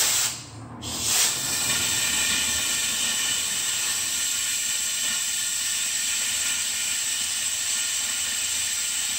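Compressed air hissing through a venturi-type coolant vacuum refill tool as it pulls a vacuum on the car's cooling system. A short burst of hiss at the start, then a steady hiss from about a second in.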